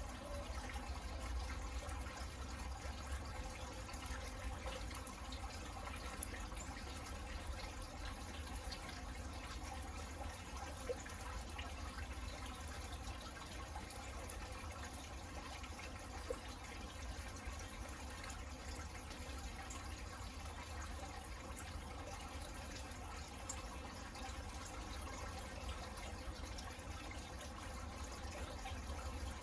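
Steady rain falling in a garden, with scattered drips on leaves and pots and a constant low rumble underneath.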